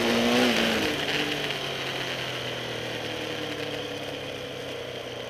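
Hillclimb vehicle's engine heard from an onboard camera, coming off the throttle: its note drops in pitch through the first second, then runs lower and steadier, growing quieter as the vehicle slows, with road and wind hiss underneath.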